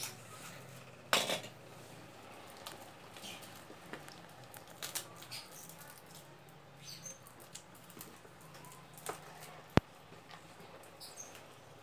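Hands handling and opening a toy's box and packaging: scattered light clicks, taps and rustles, with a louder rustle about a second in and one sharp click near the end.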